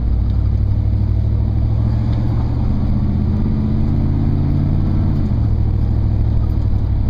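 Engine and road noise of a large vehicle heard from inside the cab while driving, a steady low hum whose engine note climbs slowly, then drops suddenly about five seconds in.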